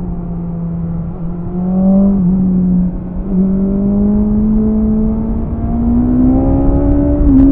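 BMW S1000RR's inline-four engine on its stock exhaust, heard onboard while riding at moderate revs. The engine note holds fairly low after easing off, steps up a little a couple of times, and climbs again near the end as the rider gets back on the throttle.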